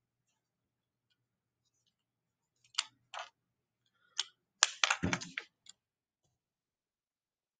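A string of sharp clicks and taps on a computer keyboard, starting almost three seconds in and bunching into a quick run about two-thirds of the way through, with one heavier, deeper thump in the middle of that run.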